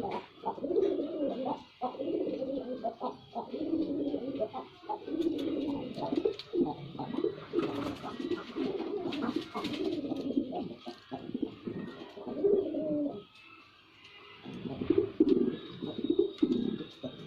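Male domestic pigeon cooing over and over in low, pulsing phrases, the courtship cooing of a displaying male. The cooing breaks off for about a second and a half about two-thirds of the way through, then starts again.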